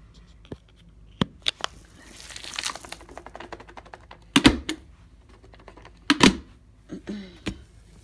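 Small hard bits of debris clicking and clattering as they are gathered up off a carpet by hand. There is a brief rustle about two seconds in and two heavier thumps in the second half.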